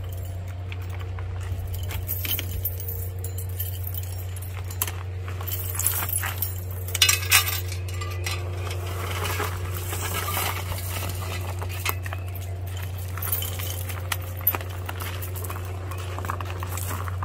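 A steady low machine hum in the background, with scattered light clicks and metallic clinks as the e-bike is handled and moved, the sharpest about seven seconds in.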